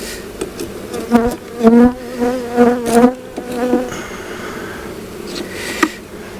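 Honeybees buzzing around an open hive, one flying close by with a loud wavering buzz that peaks between about one and four seconds in, with a few short clicks.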